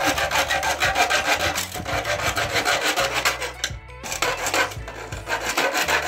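Hand-held hacksaw blade sawing through a red plastic electrical box in quick back-and-forth strokes, with a brief pause a little under four seconds in.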